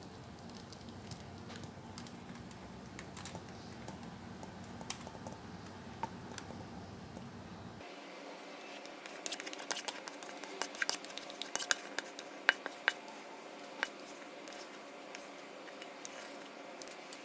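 Faint steady background hum, then from about eight seconds in a run of sharp clicks and scrapes: a utensil scraping and tapping against the mixing bowl as the last of the thick cake batter is emptied into the pan.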